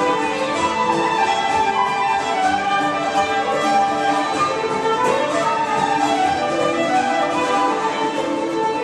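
Traditional Scottish tune played by flute, fiddle, bouzouki and bodhrán together, the flute and fiddle carrying the melody over the bouzouki's chords and the bodhrán's steady beat.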